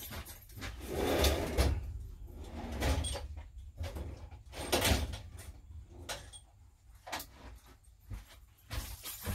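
Irregular knocks and clatters of things being handled in a workshop, with a longer scraping rustle about a second in and another near the middle.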